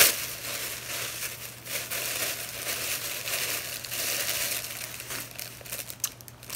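White tissue paper rustling and crumpling as it is pulled apart and handled to unwrap a gift, with a sharp crackle right at the start.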